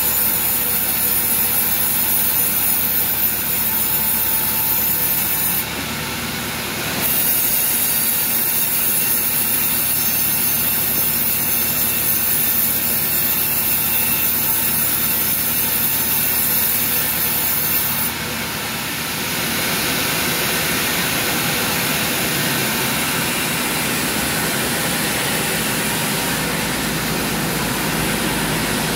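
Band sawmill blade cutting a teak log: a loud steady high hiss of the blade in the wood, dipping briefly about six seconds in and stopping about eighteen seconds in. After that the saw's machinery keeps running with a lower, steady hum.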